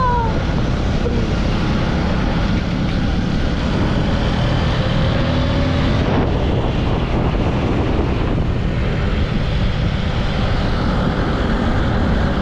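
Honda 150cc single-cylinder dirt bike running at road speed, its engine note under heavy wind rushing over the microphone.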